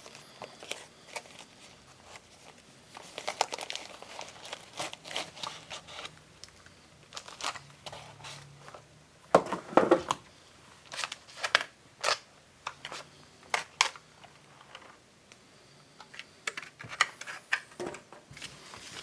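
Packaging being handled and opened: irregular crinkling, rustling and small clicks as a model locomotive is lifted out of its box, with one louder knock about halfway through.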